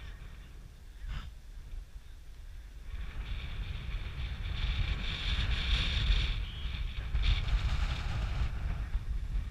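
Wind buffeting the microphone: a constant low rumble, with a hiss that swells about three seconds in and eases near the end.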